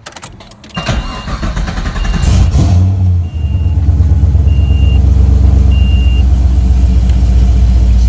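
LS1 V8 engine in a Nissan 240SX cranked on the starter about a second in, catching and settling into a steady idle after about three seconds. A warning chime beeps five times as it starts.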